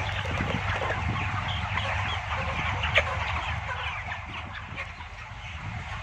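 A large flock of white broiler chickens in a closed poultry shed, many birds clucking and chirping at once in a continuous din over a low steady hum, with one sharper call about three seconds in.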